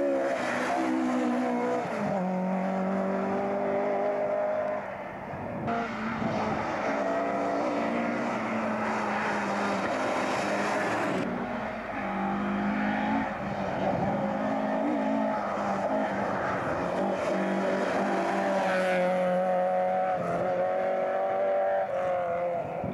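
A Ford Escort Mk2 rally car at speed passes close and drives off down the stage. Its engine note rises and steps down through gear changes. The next rally car's engine is heard approaching near the end.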